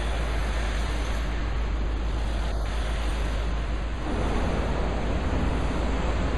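Steady outdoor city noise, a low rumble with a hiss, growing a little louder about four seconds in.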